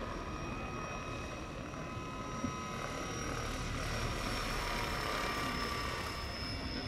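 Steady high whine of a large RC model helicopter, several even tones held over a low rumble.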